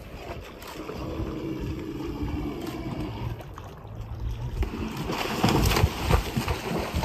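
Wind on the microphone over water, then loud splashing from about five seconds in as a moose charges through the shallows.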